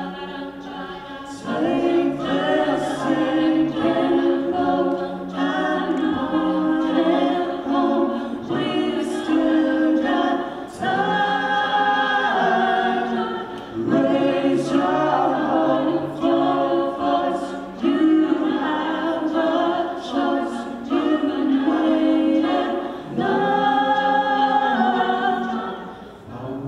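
Mixed-voice a cappella group singing in close harmony, with no instruments: a low sung bass line under the upper voices, in phrases of a few seconds that swell and briefly drop back.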